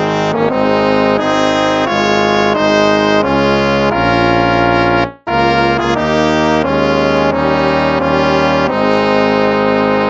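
Instrumental hymn music: sustained chords in slow phrases that break off briefly about five seconds in and resume.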